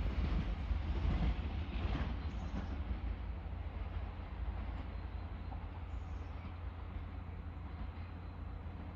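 A train rolling out of the station, its rumble and rattle slowly fading over the first few seconds, over a steady low rumble of wind on the microphone.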